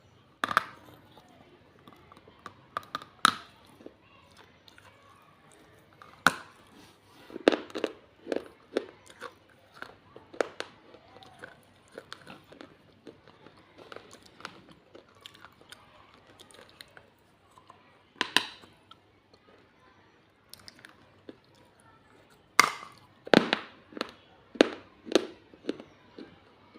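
Pieces of baked clay pot being bitten and chewed: sharp, brittle crunches come singly and in quick clusters, with quieter grinding chews between them.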